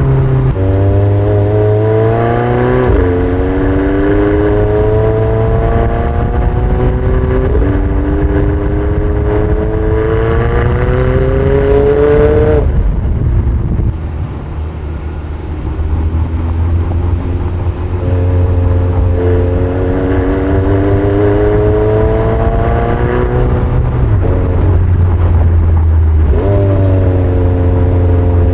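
McLaren 720S's 4.0-litre twin-turbo V8 accelerating hard through the gears: the engine note climbs, then drops sharply at each quick upshift. Around halfway it eases off for a couple of seconds, then pulls again through more gear changes.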